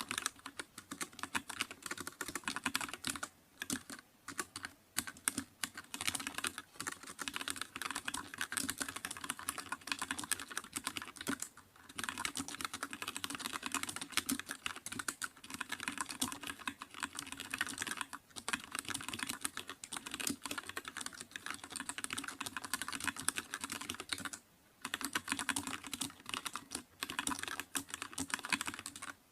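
Continuous fast typing on a computer keyboard, a dense patter of key clicks with a few short pauses between bursts.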